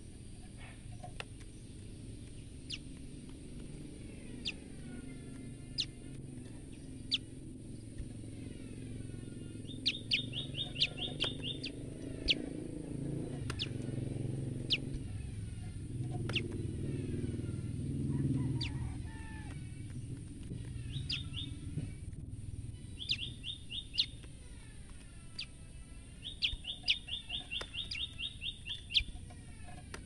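Female common tailorbird giving fright calls: single sharp chips scattered throughout, and several rapid trills of repeated chips, the longest lasting a couple of seconds near the end.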